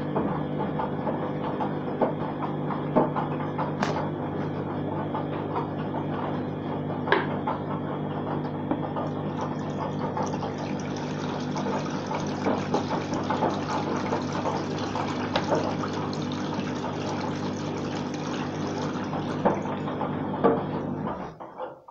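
Water being poured into a washing machine, about one and a half litres added to the wash water, as a steady pouring rush over a low steady hum. It stops abruptly near the end.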